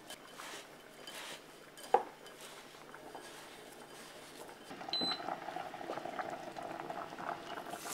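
Hands tossing diced chicken breast in breadcrumbs in a glass bowl: soft rustling and light scattered clicks, with one sharp click about two seconds in. From about five seconds in comes a louder, steady noise with a hum, as extra-virgin olive oil heats in a frying pan.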